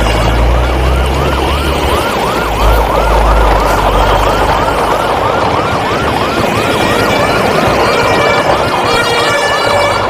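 An electronic siren wailing in a fast yelp, its pitch sweeping up and down about three times a second. A low rumble sits under it for the first half.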